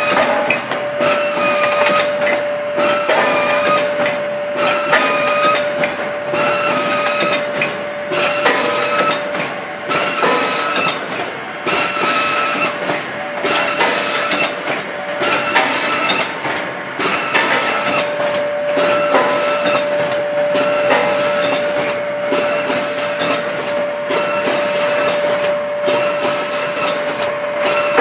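Round-soap pleat-wrapping machine running in steady cycles, about one a second: a hiss that cuts out briefly with each cycle, mechanical clatter, and a steady whine underneath.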